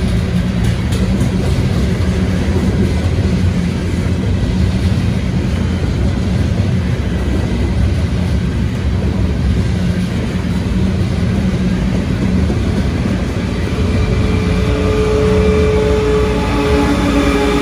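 Long train of loaded coal hopper cars rolling past, a steady rumble and clatter of steel wheels on the rails. Near the end a rear-end CSX GE diesel locomotive draws level, adding a steady engine hum with several held tones.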